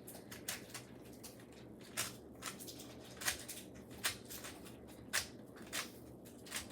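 Plastic mirror cube being turned by hand through an algorithm: a string of short, sharp clicks at an uneven pace of about one or two a second as the layers turn.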